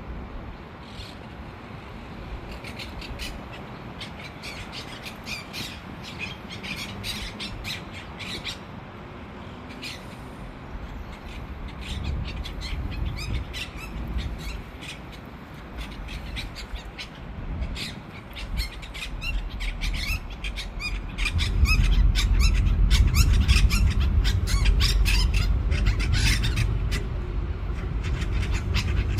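Two parakeets chattering and squawking back and forth in rapid, harsh calls that come thicker and faster in the second half. A low rumble swells underneath about two-thirds of the way through.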